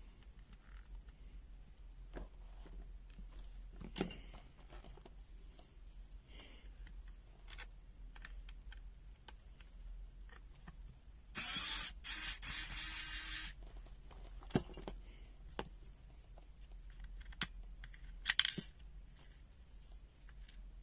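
Scattered light clicks and taps of small objects being handled, with a hiss lasting about two seconds near the middle.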